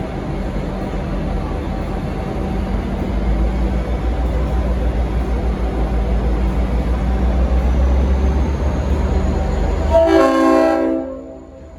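A V/Line N class diesel locomotive's engine runs with a steady low rumble that grows louder as it pulls away. Near the end its Leslie RS5T multi-chime air horn sounds one short blast of about a second, after which the sound drops away sharply.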